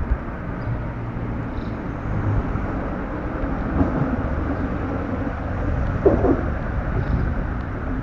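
Steady low outdoor rumble, with a couple of faint short sounds about four and six seconds in.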